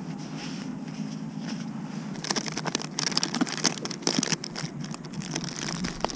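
Rummaging in a tackle bag: plastic tackle boxes and soft-bait packaging rustling with irregular clicks and crinkles, which start about two seconds in.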